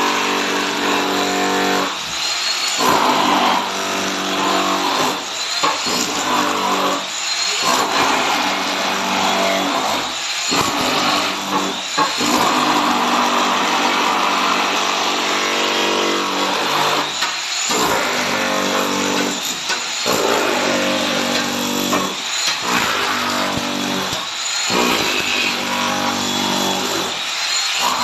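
A motor running in repeated spurts, starting and stopping every second or two with a steady pitch while it runs.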